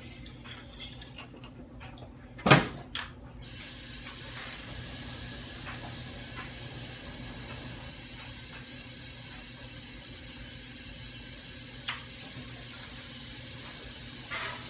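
A single loud knock about two and a half seconds in, then a kitchen tap turned on, its water running steadily from about three and a half seconds in.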